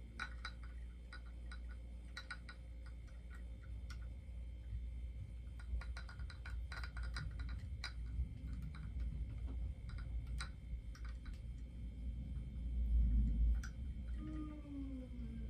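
Light, scattered clicks and taps of plastic parts being handled as a mini bobblehead is fitted onto its display base, with a short squeak falling in pitch near the end.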